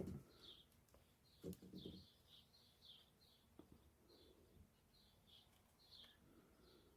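Faint bird chirping: short high chirps repeated every half second or so, with a couple of soft handling knocks about one and a half seconds in.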